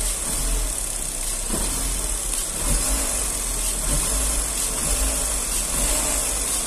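Chevrolet Astra's Flexpower four-cylinder engine running steadily after its revs come back down, with no knocking heard. The intermittent knock came from one faulty fuel injector, now replaced.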